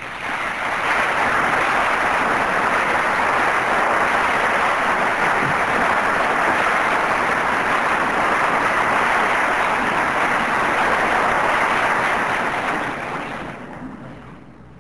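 A large lecture-hall audience applauding, swelling up in the first second and dying away over the last couple of seconds.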